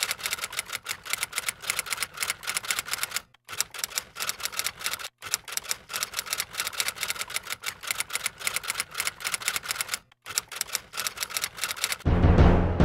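Typewriter keystroke sound effect: a rapid run of sharp key clicks, broken by brief pauses three times. Near the end, music with deep drum hits comes in.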